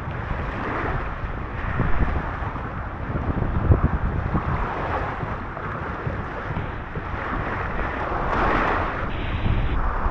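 Wind buffeting the microphone with low rumbling gusts over a steady rushing noise, like moving water.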